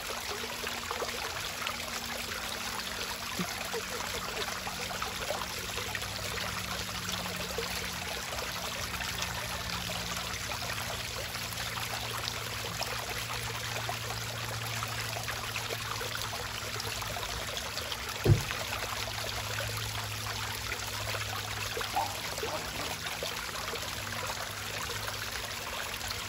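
Water trickling and splashing steadily in a stock-tank fish pond, over a faint low hum. A single sharp knock sounds about eighteen seconds in, and a lighter one a few seconds later.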